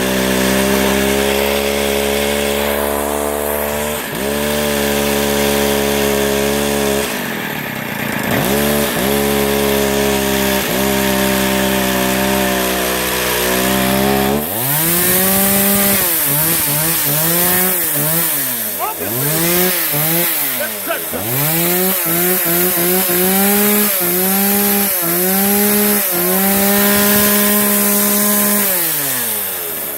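Two-stroke engine of a 32cc Mac chainsaw running after a new primer bulb and fuel line have been fitted. It runs steadily with a few brief dips for the first half, then from about halfway through is revved down and up over and over, roughly once a second, before settling steady near the end.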